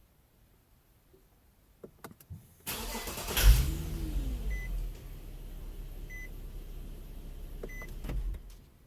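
Infiniti G37 3.7-litre V6 hot-cranking, with a single loud knock right as it catches; the owner has not cured this with new plugs, swapped coils or a new fuel damper, and thinks it could be winter gas. The revs flare up and drop back to a steady idle. A short chime beeps about every second and a half.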